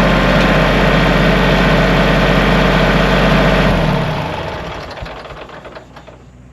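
Kubota L3301 tractor's three-cylinder diesel engine idling steadily, now running after a no-start repair. It grows fainter from about four seconds in.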